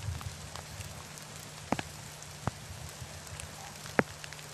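Wind and handling noise on an outdoor camera microphone: a low rumble under a crackling hiss, with three sharp clicks, the loudest near the end.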